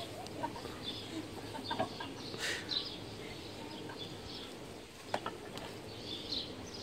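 Birds chirping again and again in the background, with a few sharp knocks, the clearest about five seconds in.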